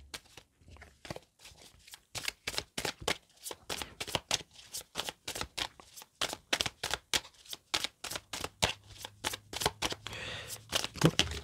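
Deck of oracle cards being shuffled by hand: a quick, even run of card clicks, about four or five a second.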